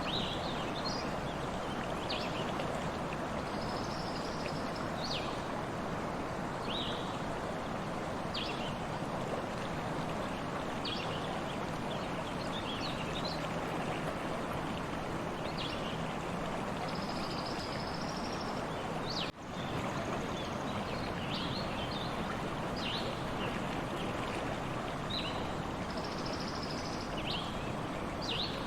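A stream running steadily, with birds calling over it in short chirps and a few longer trills.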